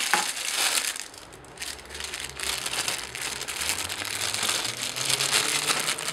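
Clear plastic bags crinkling and crackling as they are handled and opened around the cables inside them, a busy, irregular run of small crackles.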